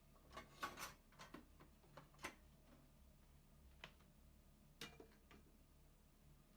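Kitchen knife cutting cabbage on a cutting board: a few scattered crisp cuts and knocks, irregular rather than a steady chopping rhythm, all faint.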